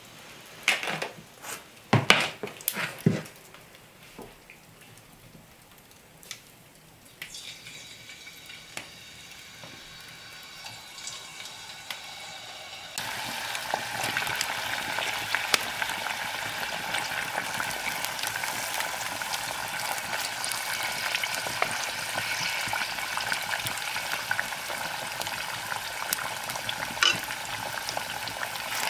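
A few knocks in the first seconds, then potato curls frying in hot fat in a cast-iron pot: a steady sizzle that becomes much louder about halfway through.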